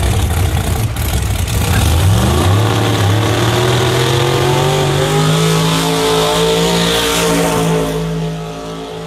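Drag race cars at full throttle making a pass. A heavy engine rumble is followed, about two seconds in, by an engine note that climbs steadily in pitch as they run away down the strip, then fades near the end.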